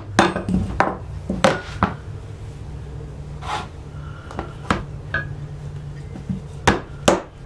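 Steel hatchet head and wooden handle knocking against a wooden workbench and a small wooden block as the hatchet is lifted, turned over and set back down. The result is a series of sharp knocks, clustered at the start and again near the end.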